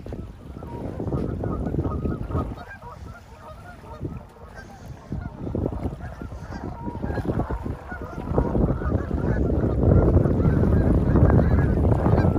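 A flock of Canada geese on the water honking repeatedly, many overlapping calls. Wind buffets the microphone with a low rumble that grows louder in the second half.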